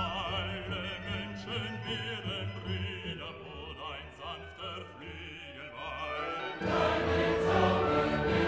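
Background music with sung voices in a choral, operatic style. It swells fuller and louder about two-thirds of the way through.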